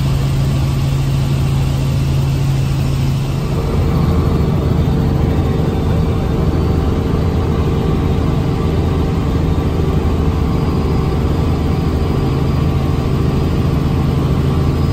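Steady drone of a small helicopter's engine and rotors heard from inside the cabin in flight, with a strong low hum; the tone shifts slightly about three and a half seconds in.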